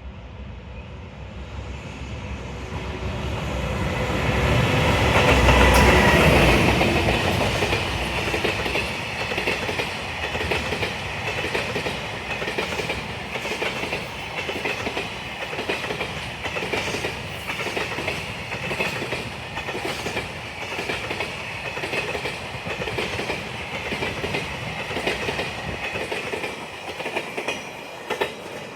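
JR Freight EH200 twin-unit electric locomotive passing close by, loudest about five to six seconds in, followed by a long string of Koki container flatcars rolling past with a steady, rhythmic clickety-clack of wheels over the rail joints.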